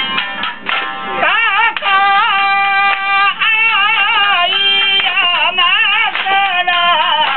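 Shamisen plucked briskly, joined about a second in by a singing voice with long, wavering, ornamented held notes over the strings.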